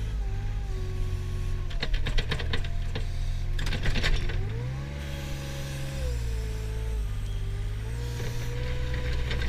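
Mustang compact wheel loader's engine running under work, its pitch rising and falling as the bucket is loaded and raised. Two bouts of rapid clicking and rattling come about two and about four seconds in, while the bucket works into the pile of grass clippings.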